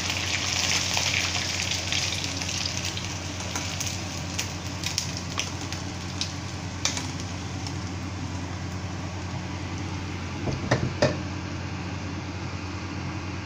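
Chicken wings deep-frying in oil in a wok, the sizzle fading over the first few seconds. Then scattered metal clinks and scrapes as the wings are tipped from the wok into a wire strainer, with a louder clatter about ten to eleven seconds in, over a steady low hum.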